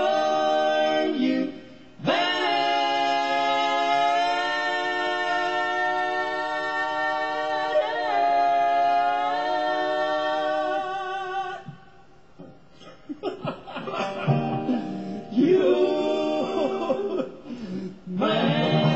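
Three-part bluegrass vocal harmony sung without accompaniment, in long held notes with a slight waver. It breaks off about eleven seconds in, shorter broken phrases follow, and the band comes back in loudly near the end.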